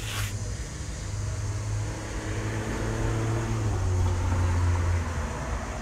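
Low engine rumble of a motor vehicle that grows louder toward about four seconds in, its pitch dropping slightly, then eases off. A short scratchy noise sounds right at the start.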